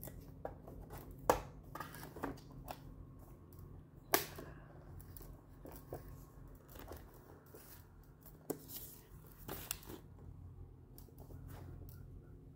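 Packaging and unboxed items being handled: scattered rustles and sharp clicks and taps, the loudest a little over a second in and about four seconds in, over a steady low hum.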